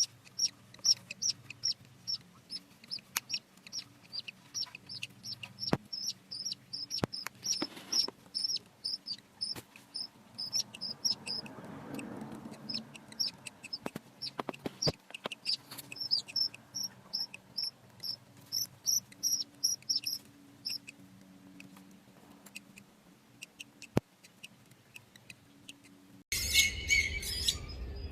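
Budgerigars chirping: a long run of short, high chirps, about three a second, with a few sharp clicks among them. Near the end the sound cuts abruptly to louder, busier chirping.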